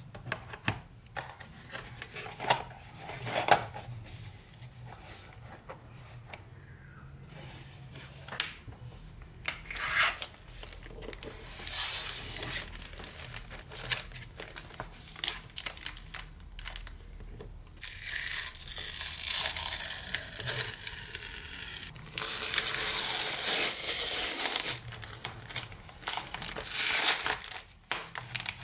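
Light clicks and taps of a small cardboard box being handled. Then plastic wrap crinkling and packing tape being peeled and torn from a cardboard mailer, loudest in a few seconds of continuous tearing past the middle.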